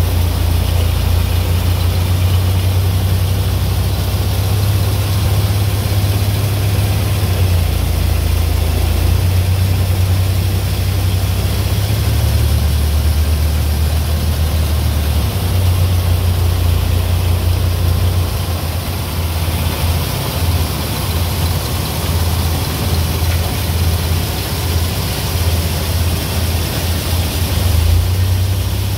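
A tractor and the 1960s New Idea two-row corn picker with sheller it drives, running steadily while picking corn, with a heavy low rumble that pulses unevenly.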